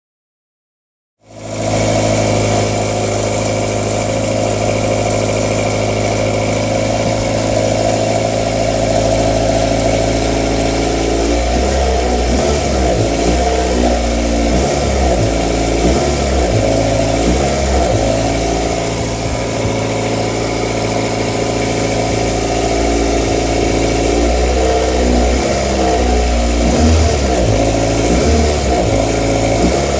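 Toyota 4A-G four-cylinder engine of an AE86 idling, cutting in about a second in. For two stretches the idle becomes uneven and wavers, heard as an abnormal engine noise, with a steady high whine over it.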